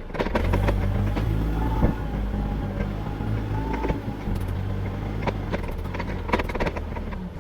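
A vehicle engine running steadily, with scattered clanks and knocks over it.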